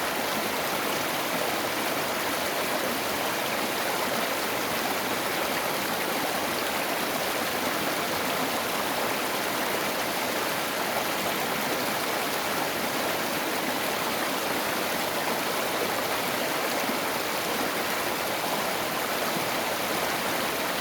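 Mountain valley stream rushing steadily over rocks, an even hiss of running water with no let-up.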